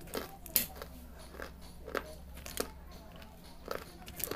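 Someone biting and chewing pieces of dry baked red clay: about seven short, sharp crunches at irregular intervals, the loudest about half a second in.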